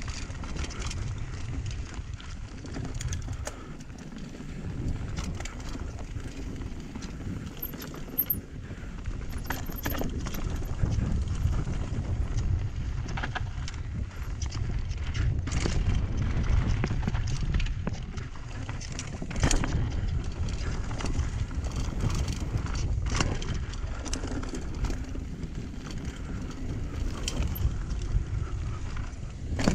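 Mountain bike riding over a rocky dirt trail: tyres crunching on dirt and stones, the bike rattling and clacking sharply over rocks, with steady wind rumble on the camera's microphone.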